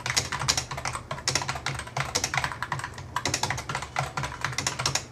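Typing on a computer keyboard: quick runs of key clicks broken by short pauses, over a low steady hum.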